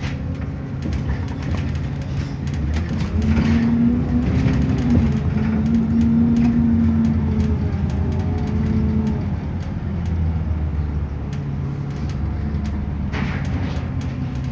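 Bus engine and road noise heard from inside the passenger saloon while driving. The engine note grows louder and higher about three seconds in, holds, and eases off after about nine seconds. Occasional short clicks are heard throughout.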